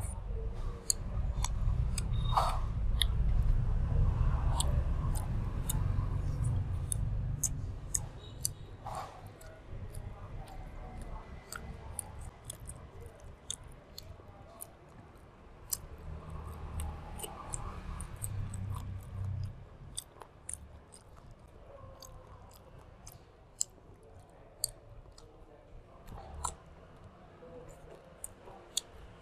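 Close-up chewing of grilled pork intestines, with many small wet mouth clicks and smacks throughout. The sound is louder with a low rumble in roughly the first eight seconds, then quieter.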